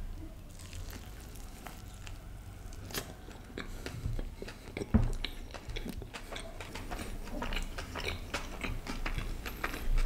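Close-miked mouth sounds of a man biting into and chewing a soft stuffed kulcha (flatbread with a paneer-ajwain filling) dipped in chutney. The sound is steady wet chewing with many small clicks and a heavier bite about five seconds in.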